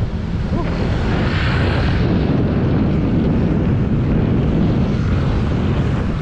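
Steady rushing of wind over the microphone of a camera riding along on a moving bicycle, mixed with road noise. A brighter hiss rises and falls between about one and two seconds in.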